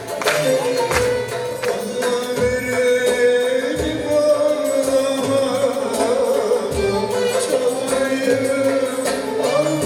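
Turkish folk song played by an ensemble: a wavering melody over a regular hand-drum beat.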